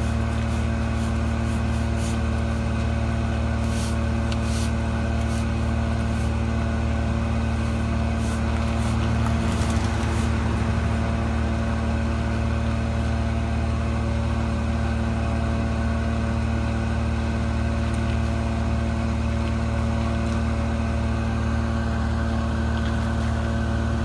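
Vehicle engine running steadily, an even, unchanging drone. A scatter of light clicks and scrapes comes over it in the first half.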